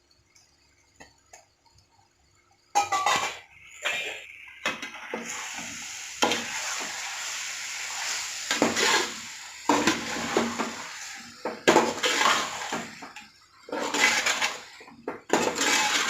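Metal spoon scraping and knocking against a cooking pot as raw chicken is stirred into hot oil and masala, with a steady sizzle underneath. It starts suddenly after about three seconds of near silence.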